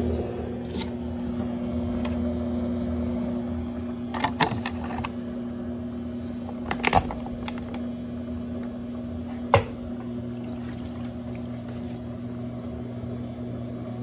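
Electrolux LAC17 top-loading washing machine running with a steady low hum, a few sharp clicks around the middle, as the basket starts spinning up near the end.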